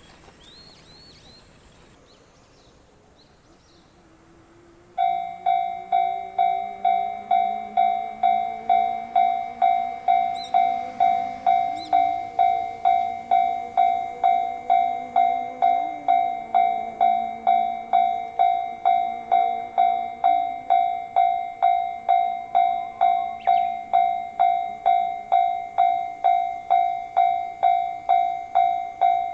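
Japanese railway level crossing warning bell starts about five seconds in and rings steadily at about two strikes a second. Beneath it is the lower running sound of an approaching train, rising and falling in pitch.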